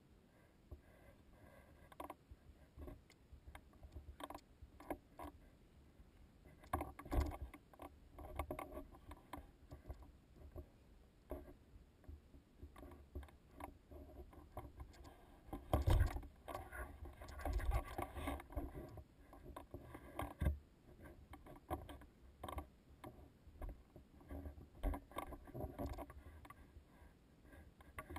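Footsteps crunching and scuffing on loose rock and gravel: an uneven series of knocks and scrapes, with heavier thumps about seven and sixteen seconds in.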